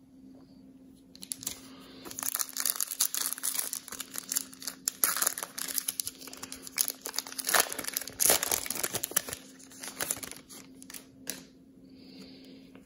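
A foil 2019 Prizm football card pack crinkling as it is torn open by hand. The dense crackle starts about a second in, runs for around ten seconds and stops shortly before the end.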